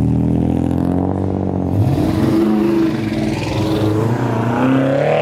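Car engine and exhaust pulling away under acceleration. The engine note climbs steeply about two seconds in and again near the end, and it sounds clean.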